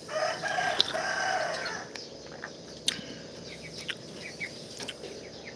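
A rooster crowing once, lasting about two seconds, followed by faint, scattered chirps of small birds.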